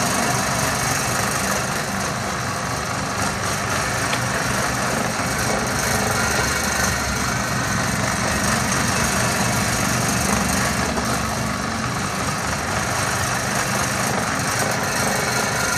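A small electric motor running steadily: a low hum under an even rushing noise that does not change.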